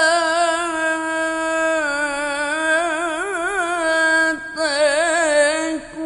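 A qari reciting the Quran solo in the melodic tilawah (mujawwad) style, drawing out long held notes that waver up and down in ornamented runs. The voice dips and breaks briefly twice in the second half.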